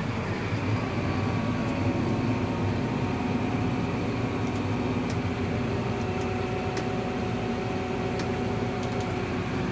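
Challenger 1042 tractor's 12.4-litre MAN diesel running steadily at about 1150 rpm under heavy draft load, pulling a ripper sunk about 14 inches deep. Heard from inside the closed cab, where it is fairly quiet.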